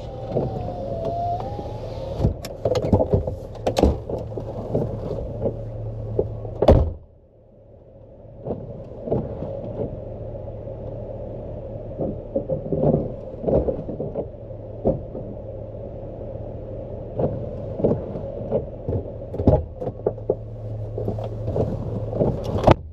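Pickup truck engine idling with a steady hum, with scattered clicks and knocks from the cab door and someone moving about. A loud door thump about seven seconds in, and another near the end, each cut the sound down sharply.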